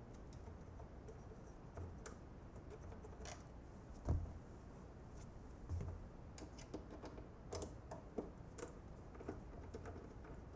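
Scattered small clicks and taps of screws being backed out of a spin bike's plastic belt guard and handled, with one louder knock about four seconds in.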